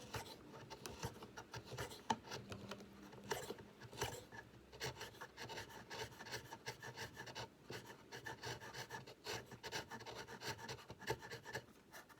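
Hand chisel paring away the excess on the end of an oak knob, a run of short, uneven scraping strokes on the wood.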